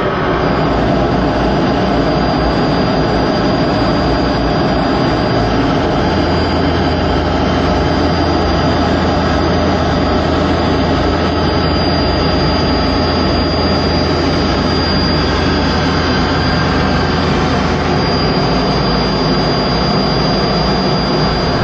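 Steady engine and airflow noise of a jet aircraft in flight, with a thin high whine over it. A deeper hum swells for most of the middle.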